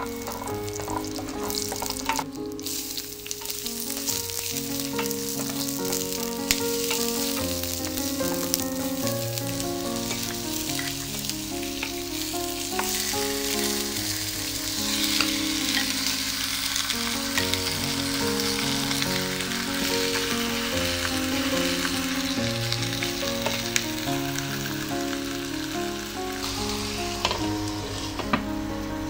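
Minced garlic and onion sizzling in hot oil in a nonstick pan, stirred with a wooden spoon; about halfway through, slices of pork leg go in and the sizzling gets louder as they brown. Background music plays throughout.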